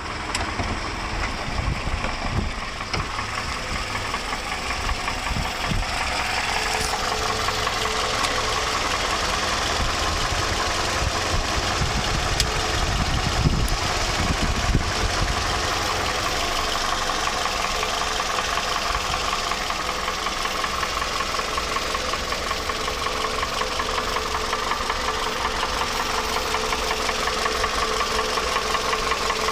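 Toyota 2AZ-FE 2.4-litre inline-four running steadily with a fast, even knocking from the engine. The owner takes it most likely for a noisy timing chain on this 225,000 km engine.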